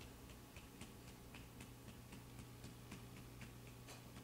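Faint, soft taps about three a second: a hand patting a baby's back to bring up a burp.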